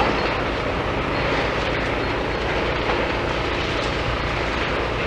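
Heavy demolition machinery running steadily, with a low engine hum under a dense rumble.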